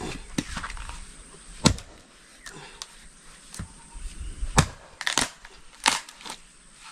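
Wood being chopped: a string of irregular sharp cracking strikes, the loudest in the second half.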